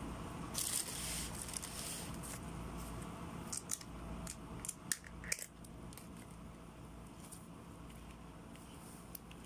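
Crispy fried broast chicken being torn apart by hand and bitten into: crackling of the fried coating about half a second in, then a few sharp crunches around the middle, over a low steady hum.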